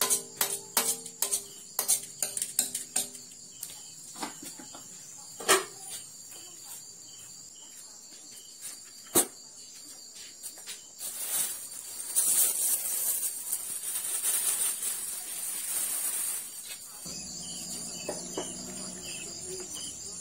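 A metal spatula scrapes and taps against a steel wok in quick strokes for the first few seconds, with a couple of single knocks later. Crickets chirp steadily at a high pitch throughout. About eleven seconds in a rushing hiss starts and stops some six seconds later.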